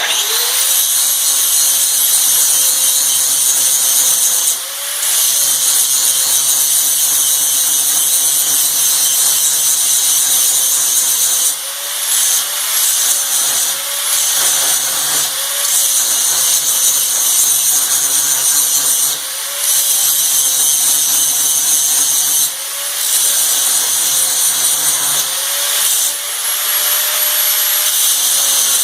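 Electric grinder running and grinding metal off a steel part of a manual tire changer: a steady whine with a loud grinding hiss that eases off briefly five or six times as the tool comes off the work.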